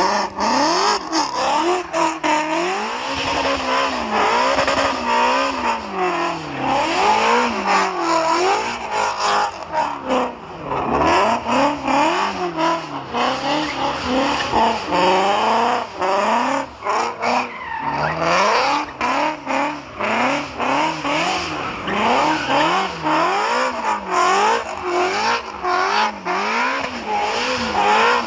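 Shelby GT350R's 5.2-litre flat-plane-crank V8, tuned to 925 bhp, revving up and down again and again, about once a second, while the tyres spin and squeal.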